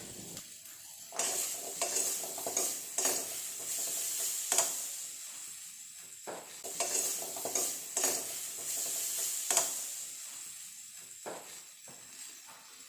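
A spatula stirring and scraping potato, cauliflower and bari (dried lentil nuggets) as they roast in a pan with little oil, with a soft sizzle underneath. The strokes come in uneven bunches, often about a second apart.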